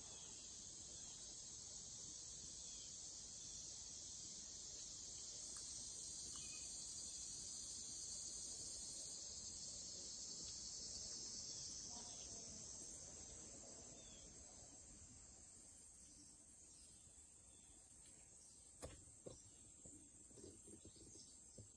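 Cicadas giving a faint, steady, high-pitched buzzing drone that swells a few seconds in and then fades off in the second half, with a couple of faint knocks near the end.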